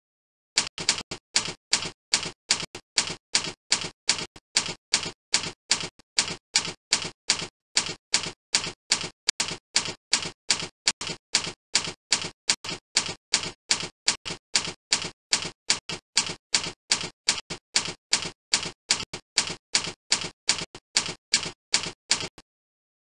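A steady run of short, sharp clicks, about three a second, that stops near the end. It is a typing or ticking sound effect laid under text being typed out on screen.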